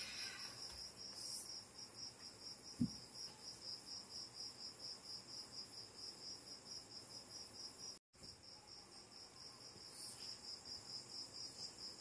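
A cricket chirping steadily, a faint high pulsing trill at about four pulses a second, with a single thump about three seconds in.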